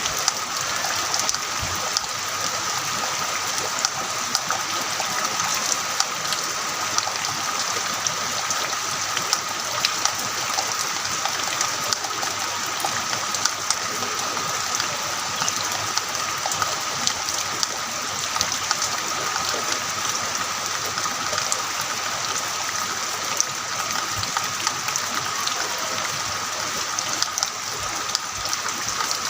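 Heavy rain falling steadily: a dense, even hiss scattered with many small drop impacts.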